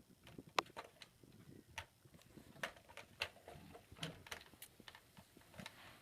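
Faint, irregular clicks and light taps of hands working on a chainsaw's parts, with one sharper click about half a second in.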